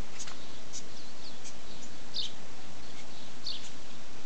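Small birds calling: a few short, high chirps that fall in pitch, heard over a steady hiss.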